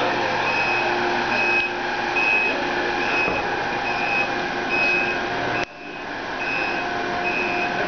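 Steady industrial machinery noise from a fabric winding machine, with an electronic warning beep repeating about every three-quarters of a second. About three-quarters of the way in, the noise drops sharply and then builds back up while the beeping carries on.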